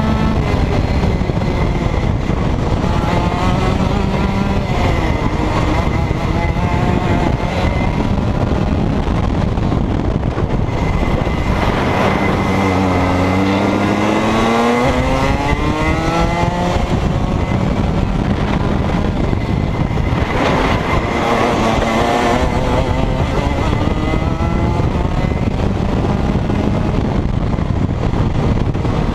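Rotax 125cc two-stroke kart engine at racing speed, heard from the driver's seat. The revs fall sharply about twelve seconds in and climb back over the next few seconds, with another dip and climb about twenty seconds in.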